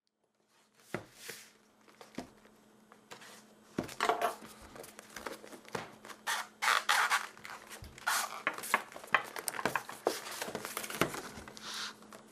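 A small folding pocket knife slitting the plastic wrap on a cardboard product box, then the wrap crinkling and tearing as it is pulled off, with scrapes and knocks as the box is handled on a wooden table. Starts after about a second of silence.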